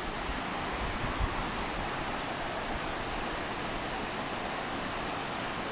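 Steady rush of a rocky woodland stream pouring over small cascades and rapids.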